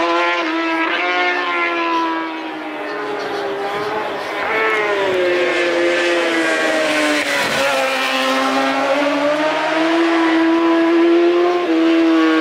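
Racing motorcycle engines at high revs, their note stepping up in quick jumps as they shift through the gears, then falling and rising again as the bikes come through and pass.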